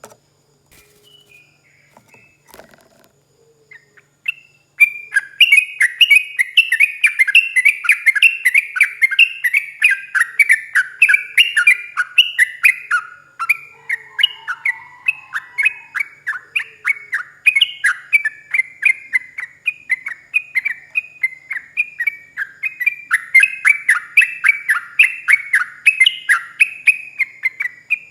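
Yellow-vented bulbul (trucuk) singing a long, fast run of chirping, down-slurred notes, several a second, starting about five seconds in and going on without a break.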